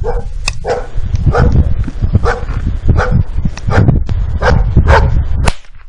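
A dog barking repeatedly, about nine barks at a steady pace, upset by the .22 rifle shots.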